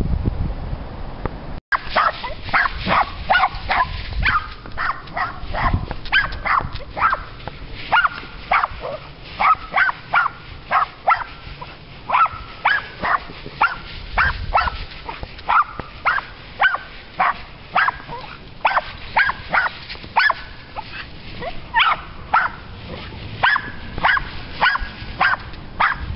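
A dog barking over and over in short barks, about two a second, starting about two seconds in.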